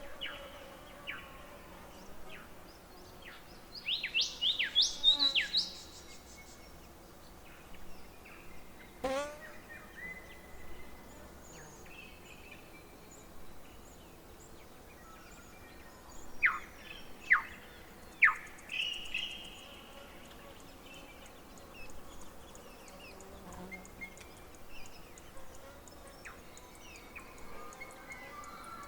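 Birds calling in short bursts of sharp, quick down-sliding whistled notes, over a faint steady hum of insects.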